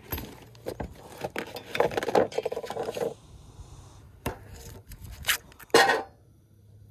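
Handling noise: rustling and clicking as a soft cooler bag and a butter box are handled, then a few sharp knocks and one louder scrape as things are set down on a wooden slide-out cooking table by a butane stove.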